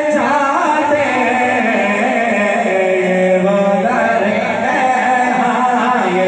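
Male voices singing a devotional Urdu chant in chorus, with long held notes that change pitch every second or so.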